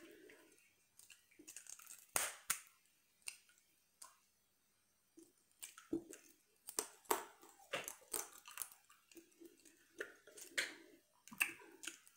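Close-miked eating of boiled shellfish by hand: shells peeled and cracked, then chewing and biting, heard as scattered sharp wet clicks and crackles. There is a brief near-silent pause about four seconds in, and a busier run of clicks in the second half.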